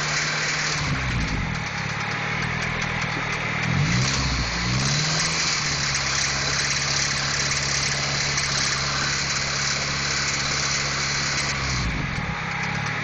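Honda H22 inline-four engine idling with a knock. The revs change briefly about a second in, twice around four to five seconds in, and again near the end.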